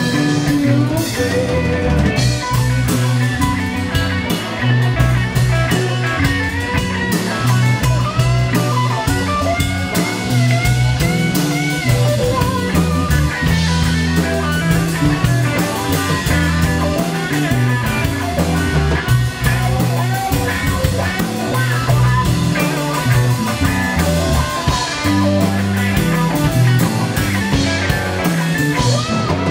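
Live blues band: an electric guitar plays lead lines full of bent notes over a drum kit and low steady accompaniment.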